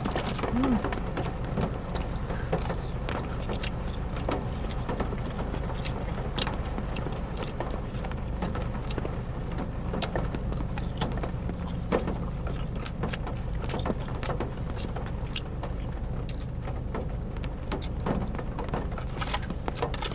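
Close-up eating of a breaded fried chicken strip: chewing with scattered sharp crunches, over the steady low hum of a car.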